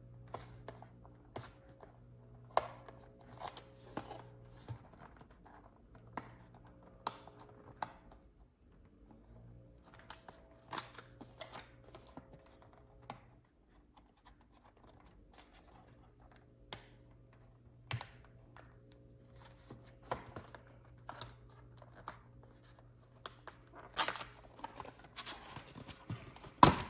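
Packaging being opened by hand: scattered rustles and light clicks, with louder tearing and rustling near the end, over a faint steady hum.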